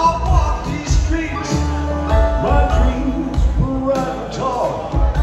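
Live band music: guitar, upright bass, drums, piano and pedal steel guitar playing together, with sliding notes over a steady bass line.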